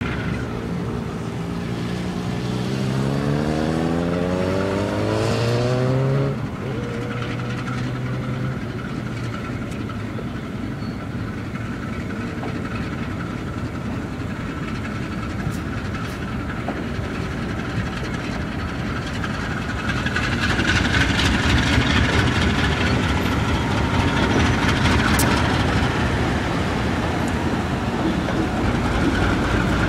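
Diesel freight locomotives departing and rolling slowly past close by. For the first few seconds an engine note rises steadily in pitch, then drops off about six seconds in. From about twenty seconds on, louder locomotive rumble and wheel noise come in as the units go by.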